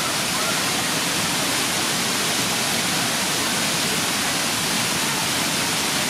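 Steady rushing of a waterfall's white water churning through a rocky gorge pool, an unbroken even noise with no separate splashes.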